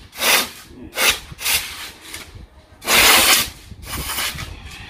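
Aerosol spray can hissing in several short squirts, the longest and loudest about three seconds in, as lubricant is sprayed onto a scooter engine's kickstarter fastener to loosen it.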